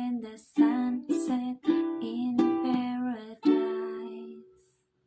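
Ukulele strummed, a handful of chords in a steady rhythm, the last chord left to ring and fade out about four and a half seconds in: the closing strums of the song.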